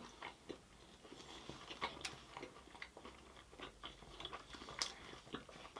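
Faint chewing and biting: irregular soft clicks and crunches of a person eating puri with jalebi.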